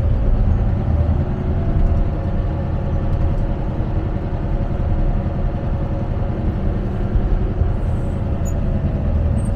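Motor grader's diesel engine running steadily, with a faint steady tone over its low drone.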